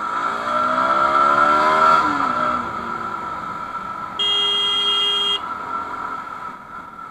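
Motorcycle engine revving up as it accelerates through traffic, its pitch rising for about two seconds and then dropping back. A vehicle horn sounds in one steady blast of just over a second, about four seconds in.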